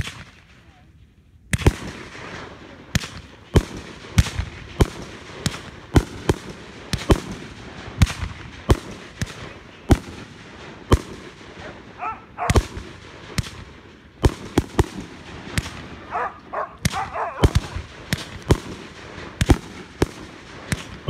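Aerial fireworks going off in quick succession: sharp bangs of shells bursting overhead, starting about a second and a half in and coming irregularly at roughly two a second.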